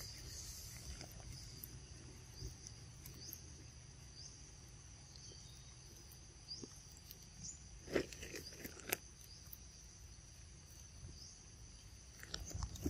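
Faint forest ambience: a steady high insect drone with a few short chirps, and two brief sharp clicks about eight and nine seconds in.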